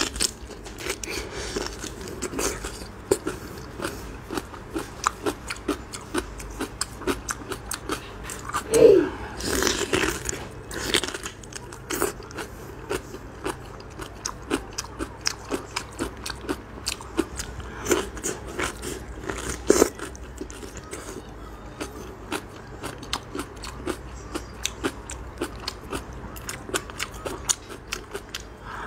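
Close-miked biting and chewing of crisp spicy napa cabbage: a dense run of wet crunches throughout, with a louder bite about a third of the way in and another about two-thirds of the way in.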